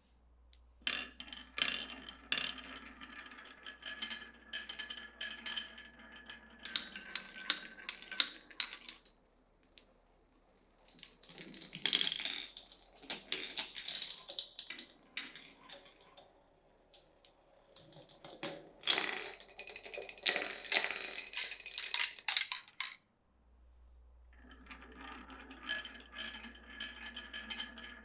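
Glass marbles rolling and clacking along a wooden marble run, in four runs of rolling and quick clicks separated by short pauses.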